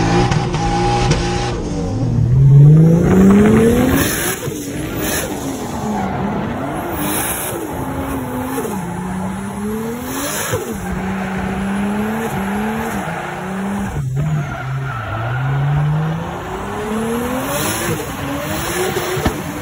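Drift car engine revving up and down again and again, with tyre squeal as the car slides. For the first two seconds it is a steady engine drone heard from inside the cabin, then the sound changes abruptly.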